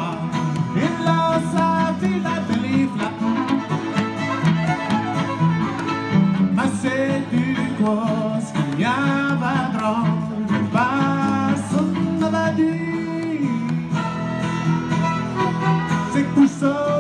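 Two fiddles and a strummed acoustic guitar playing a lively Acadian fiddle tune live, the fiddles sliding up and down between notes several times.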